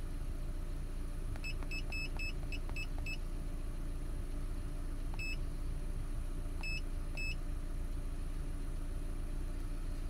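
Cen-Tech OBDII scan tool beeping at each button press as its live-data list is scrolled: a quick run of about seven short beeps, then one, then two more. Under it, the Ford Ranger's engine idles steadily with the HVAC switched off.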